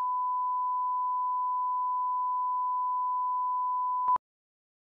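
Steady line-up test tone of a programme countdown clock, one pure unchanging pitch, ending in a brief louder blip and cutting off abruptly just after four seconds in.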